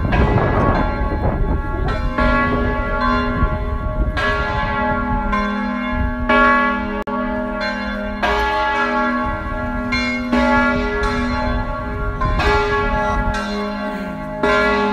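Church bells ringing, one stroke after another about once a second, their tones overlapping as they ring on. A low rumble lies under the first couple of seconds.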